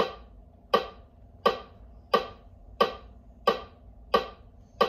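Metronome clicking at a steady tempo of about 88 beats a minute, one sharp click roughly every two-thirds of a second, with no instrument playing over it.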